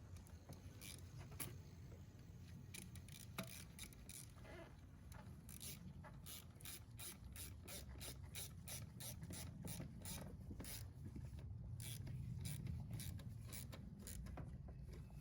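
Faint hand-tool work during engine reassembly: rubbing and scraping, with a run of quick clicks through the middle, over a low steady hum.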